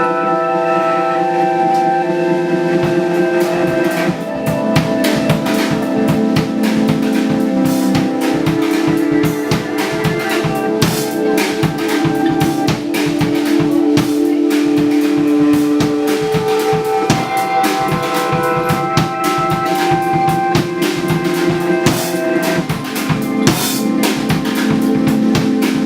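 Live band playing: held chords on a sustained instrument, with a drum kit coming in about four seconds in and keeping a steady beat.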